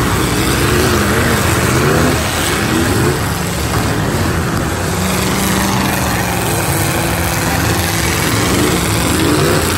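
Several demolition derby cars' engines revving hard at once, their pitch repeatedly sweeping up and down, with one engine held at a steady high rev for a few seconds in the middle, over a constant broad din.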